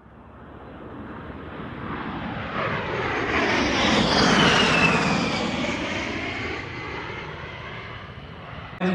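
A jet aircraft passing by: the engine noise swells up to a peak about halfway through, with a whistle that falls in pitch as it goes past, then fades away.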